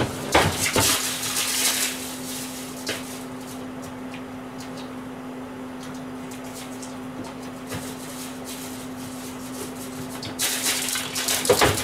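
A steady mechanical hum, with short bursts of hissing noise about half a second in and again near the end.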